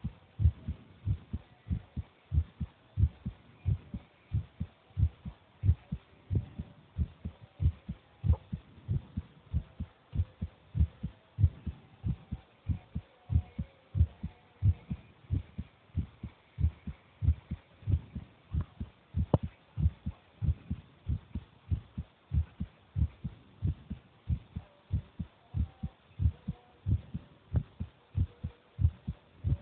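A 10-year-old child's heartbeat: a steady, even run of low thumps.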